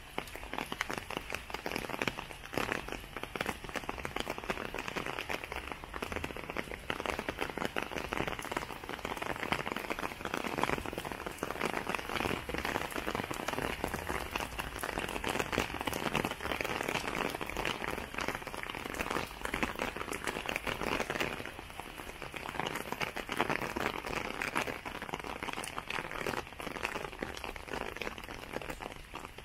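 Steady rain, a dense patter of many drops falling without a break.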